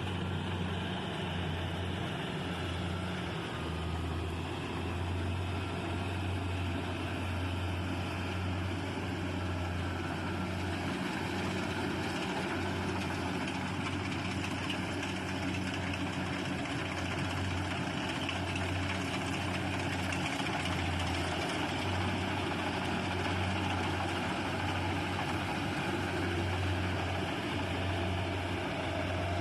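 Rice combine harvester running steadily: a constant low engine hum with an even hiss of working machinery over it.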